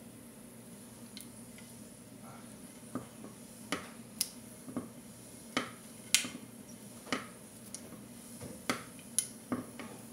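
Seeds popping in hot sesame oil in a frying pan: about a dozen sharp, irregular pops and crackles that begin about three seconds in, the loudest just past the middle. The popping is the sign that the oil is hot enough and the tempering is ready to go into the pickle.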